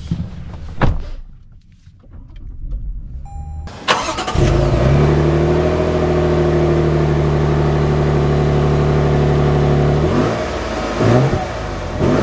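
2023 Toyota Tundra's twin-turbo V6 cranking and catching about four seconds in, then running at a steady fast idle that eases a little near the end. A click comes about a second in and a faint chime just before the start; two brief louder sounds come near the end.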